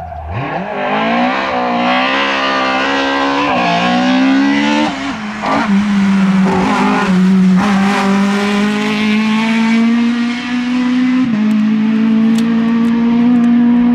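Fiat 131 Abarth rally car's four-cylinder engine accelerating hard, the revs climbing through three gears with a drop at each shift. It then holds high, fairly steady revs through the bend, with a few short breaks in the note.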